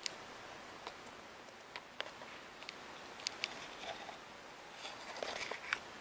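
Clear plastic parts bags being handled: faint crinkling with scattered small sharp clicks and taps.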